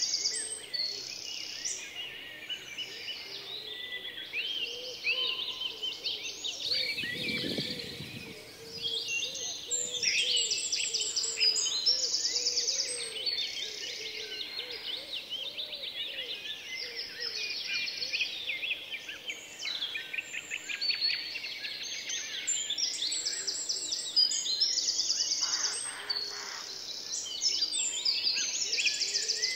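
Several birds singing and chirping at once, a dense overlapping chorus of quick trills and chirps, with a brief low rush of noise about seven seconds in.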